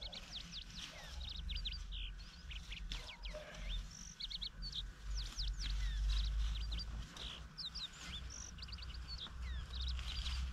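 Small birds chirping busily: many short chirps and quick down-sweeping notes, irregular and overlapping, over a low rumble.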